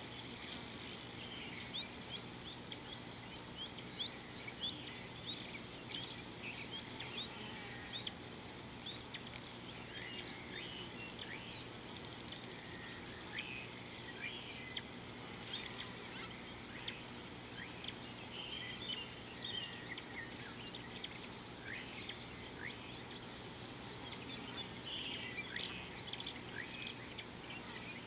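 Many small birds chirping and calling in short overlapping notes, over a steady high-pitched insect buzz that pulses about once a second for a while in the middle.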